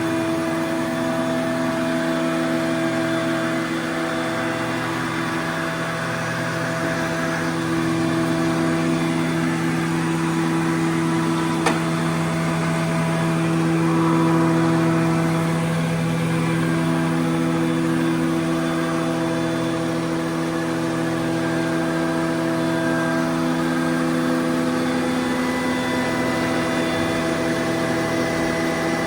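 Martin T 54 surface planer with its four-knife Tersa cutterhead running steadily, a constant machine hum. There is a single click about halfway through and a slight swell in loudness a little after.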